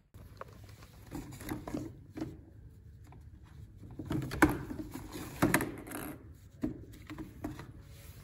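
Wooden table tennis paddles knocking and clattering against each other and a plastic basket as they are handled, in irregular knocks and short rattles, loudest twice around the middle.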